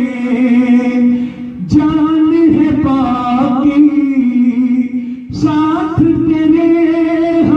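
A song: a singer holds long, wavering notes over instrumental accompaniment, broken by a few sharp beats.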